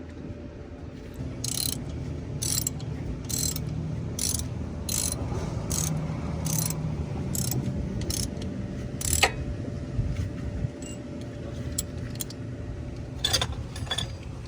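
Ratchet wrench clicking as it tightens the brake caliper bolts, a dozen or so sharp clicks about one every half second to second, then a couple more near the end, over a low steady hum.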